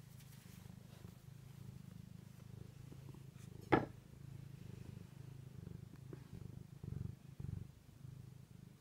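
Domestic cat purring steadily close up, swelling louder twice near the end, with a single sharp knock about four seconds in.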